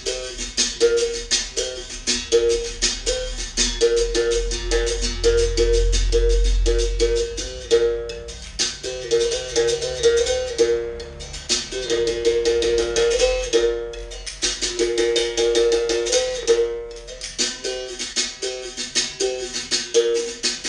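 Berimbau playing a capoeira toque: quick strikes on the steel string alternate between two notes a step apart, low and high, in a repeating rhythm with brief breaks between phrases.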